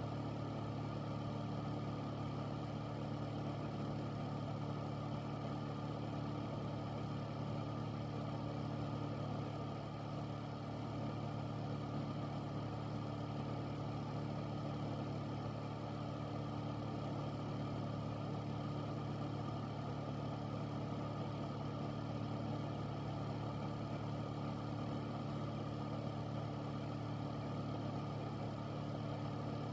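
Air filter fan running steadily: a constant low hum under an even rush of moving air.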